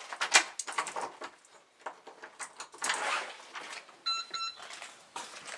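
Handling rustle and bumps as a handheld camera brushes past fabric and goes through a door, with a sharp knock about half a second in. Two short electronic beeps sound a little after four seconds in.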